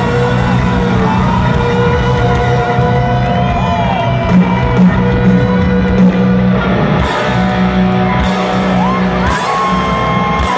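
Live rock band playing loud in an arena, heard from the crowd: an electric guitar lead holds and bends long notes over drums and bass, with a few louder drum hits midway and some crowd whoops.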